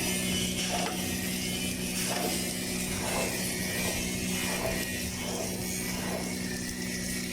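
Lincoln LT-7 submerged arc welding tractor running along the seam during a capping pass: a steady electrical hum with a faint mechanical clicking.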